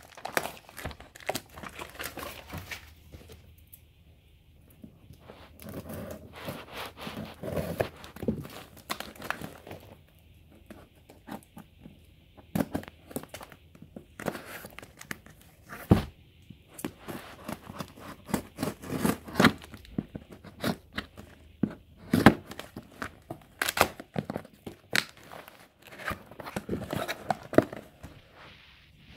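A taped cardboard box being opened by hand: packing tape and paper torn and crinkling, scissors working at the tape, and the cardboard flaps being pulled and bent. It comes as irregular rustling and crackling with scattered sharp knocks, the loudest about 16 and 22 seconds in.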